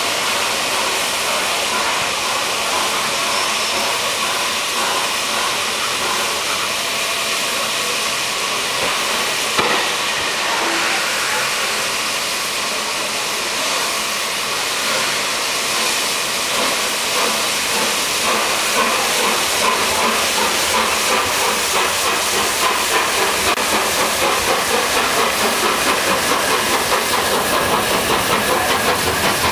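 Three-cylinder LNER Peppercorn A1 Pacific steam locomotive 60163 Tornado running slowly past, its cylinder drain cocks hissing steam. A regular beat of about two to three pulses a second builds over the last ten seconds as it draws alongside, with a single sharp knock about a third of the way in.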